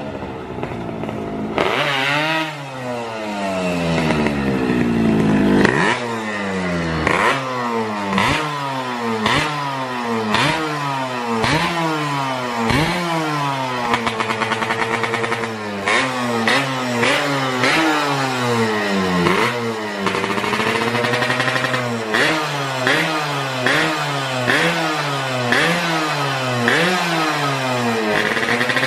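Yamaha RX-King two-stroke motorcycle engine being revved over and over: one long climb in revs in the first few seconds, then quick throttle blips about once a second, each rising and then falling in pitch.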